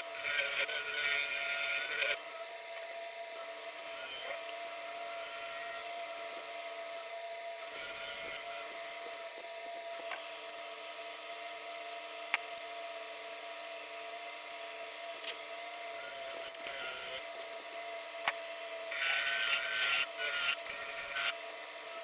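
Nova Comet II wood lathe running with a steady motor whine while a turning tool cuts the spinning wood in short hissing passes, the heaviest cuts at the start and again near the end.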